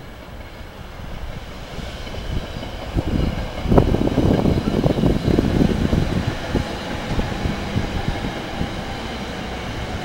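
SEPTA Silverliner IV electric commuter train passing at speed, its wheels rumbling and clattering on the rails. It grows louder over the first few seconds, is loudest about four seconds in, then eases slightly.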